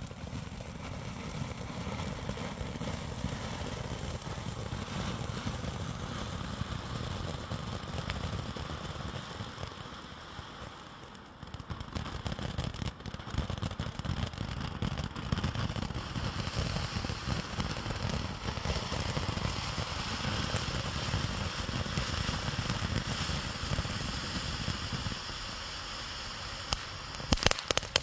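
Ground fountain firework spraying sparks with a steady rushing hiss that dips briefly partway through. Near the end it breaks into rapid crackling pops.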